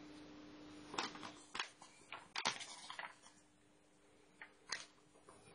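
Magazine pages rustling and tapping under a cat moving about on them: a scattered run of short rustles and clicks, bunched in the first half with two more near the end, over a faint steady hum.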